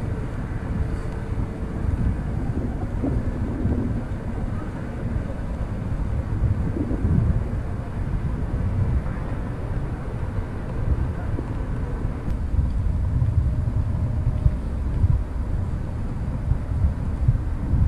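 Wind buffeting an action camera's microphone: a continuous low rumble that rises and falls in gusts.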